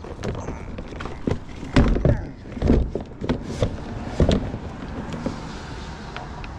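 Irregular knocks and clunks of hard objects being handled, with a few louder thumps about two, three and four seconds in, as a battery and its cable are set into the kayak.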